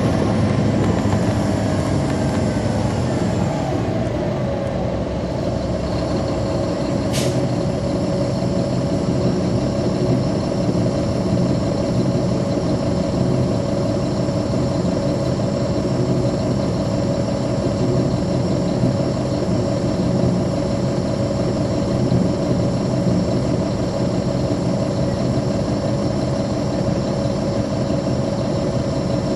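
2009 NABI 40-SFW transit bus heard from on board, its Caterpillar C13 ACERT diesel engine running. A whine falls in pitch over the first four seconds as the bus slows, then the engine settles into a steady drone. There is a single sharp click about seven seconds in.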